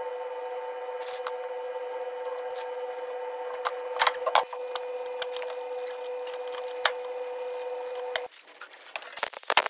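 A steady pitched machine hum that cuts off suddenly about eight seconds in, with a few sharp metallic clicks of piston rings being handled on a piston. After the hum stops, a quick run of light clicks and rustling follows.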